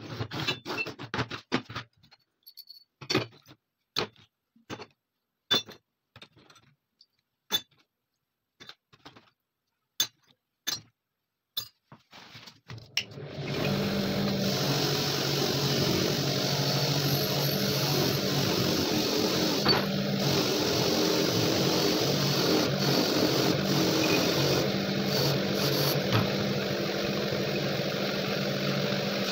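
Scattered sharp clinks and knocks of small metal pistol parts being handled and set down on a wooden bench. About 13 seconds in, a bench-mounted electric motor with a wire wheel brush starts suddenly and then runs steadily.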